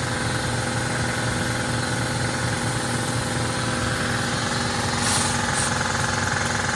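Vehicle engine idling steadily, with a short high hiss about five seconds in.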